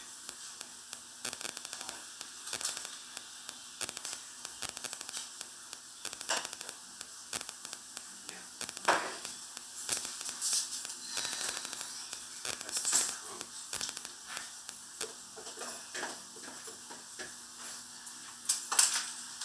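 Steady low electrical hum under scattered faint clicks and a few louder knocks from hands handling kitchen things while food is prepared in a plastic bowl.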